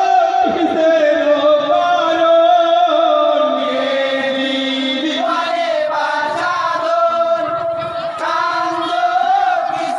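A group of men singing a Bengali jari gaan, a Muharram lament song, together in chant-like unison, holding long notes that change pitch every second or two.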